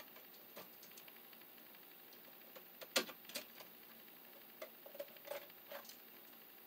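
Faint, scattered clicks and taps of hand tools and wire being handled while wiring a switch, with one sharper click about three seconds in as a tool is taken from a tool belt.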